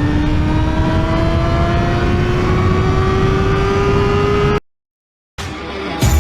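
Yamaha YZF-R6's inline-four engine running at high revs, its note climbing slowly and steadily as the bike accelerates, then cutting off abruptly about four and a half seconds in. A different sound, the start of music, comes in near the end.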